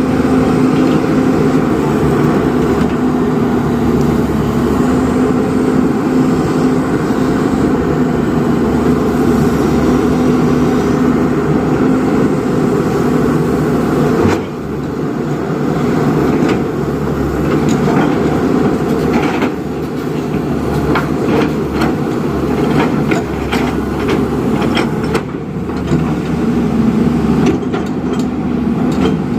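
JCB 3DX backhoe loader's diesel engine running steadily under working load. The level dips briefly about halfway through, and scattered knocks and clatter come in the second half.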